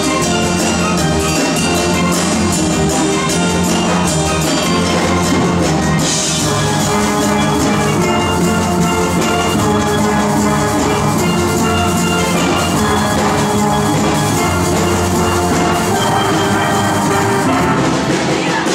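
Steel band playing a tune together: many steel pans struck with sticks, ringing in full ensemble.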